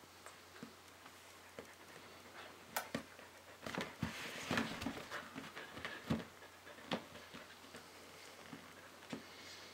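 A border collie being hand-fed treats, making scattered small clicks, smacks and knocks with its mouth and feet. The sounds are busiest and loudest around the middle.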